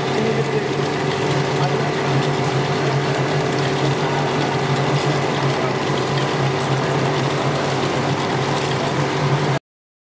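Automatic cheese winder of a PP string (sutli) plant running, its many winding spindles making a steady mechanical running noise with a constant hum. It cuts off suddenly near the end.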